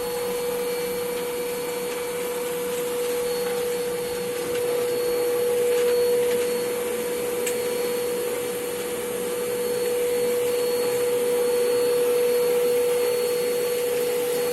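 Blower of a feather-pillow cleaning machine running steadily: a rush of air with a steady, fairly high hum, swelling slightly now and then.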